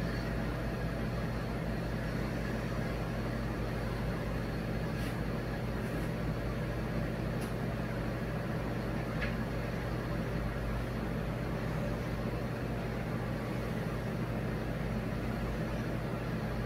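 A steady low mechanical hum at an even level, with a few faint ticks near the middle.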